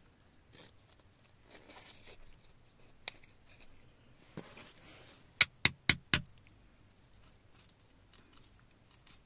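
Metal chisel scraping and picking at gritty rock and soil. A little past the middle come four sharp metallic taps in quick succession, about four a second.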